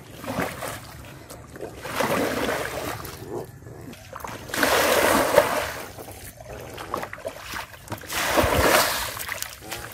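Shallow muddy water splashing as a plastic bowl is scooped through it and the water flung out, bailing a pool; several separate splashes a couple of seconds apart.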